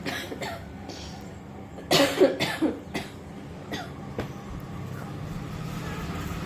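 Coughing from a woman and a baby. A couple of short coughs come at the start, a louder run of three or four coughs follows about two seconds in, and a few fainter single coughs come after.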